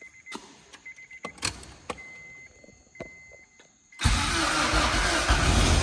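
Clicks and an on-off high electronic beep as the key is worked, then about four seconds in the Acura Integra's freshly installed replacement engine is cranked over by the starter, loud and rough, on its first start attempt.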